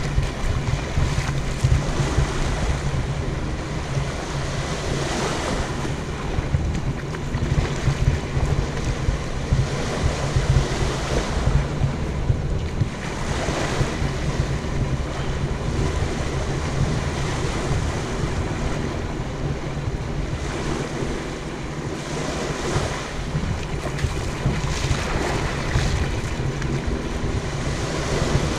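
Small waves washing in and out on a sandy beach, swelling every few seconds, with wind buffeting the microphone.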